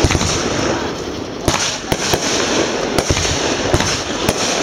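Aerial fireworks shells bursting in quick succession: about seven sharp bangs at irregular gaps of a half second to a second, over a continuous dense hiss.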